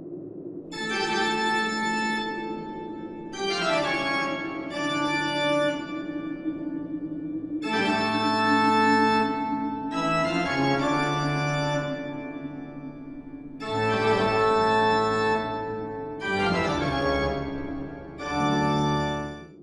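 Organ music: slow sustained chords that change every second or two over a held low drone.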